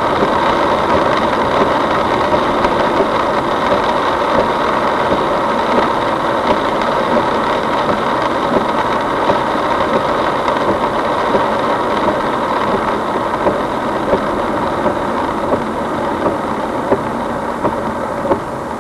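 Car engine and road noise, running steadily while driving in typhoon wind and rain, with scattered sharp ticks that grow more frequent near the end as the level eases slightly.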